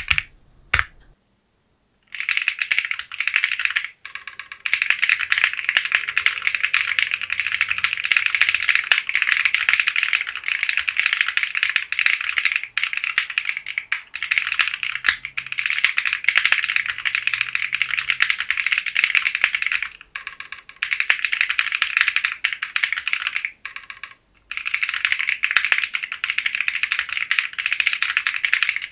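Fast typing on a Matrix 6XV 3.0 Corsa custom mechanical keyboard with unlubricated Bsun RAW linear switches and PBT keycaps: a dense run of key clacks that stops briefly a few times, the longest pause about a second in.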